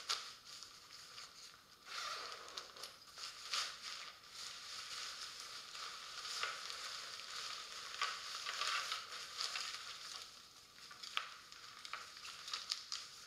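Tent stuff sack and packed tent fabric rustling and crinkling as hands open the sack and pull the tent out, a steady crackly scrunching with many small clicks.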